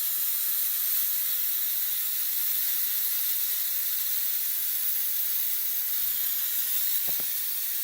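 Steam hissing steadily from a small home-built model steam boiler under test.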